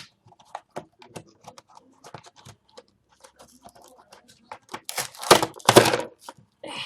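Small plastic toy accessories clicking and tapping as they are handled, then plastic packaging rustling loudly in two bursts about five to six seconds in.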